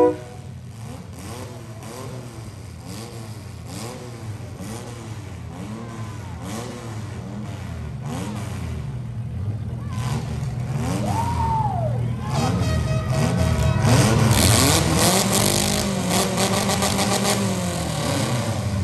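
Demolition derby compact cars' engines revving, their pitch rising and falling over and over. The racket builds and is loudest about two-thirds of the way through.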